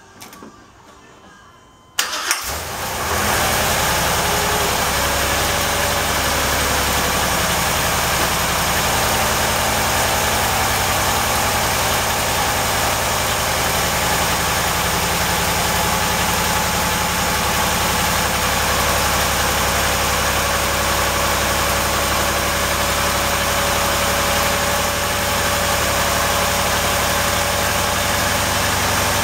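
Carbureted 383 cubic-inch Chevrolet small-block stroker V8 cold-starting: it catches suddenly about two seconds in and settles into a steady fast idle, held up on the choke's fast-idle cam.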